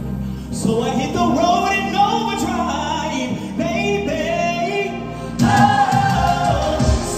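Stage-show music with sung vocals. About five seconds in it swells into a louder, fuller passage with a low beat.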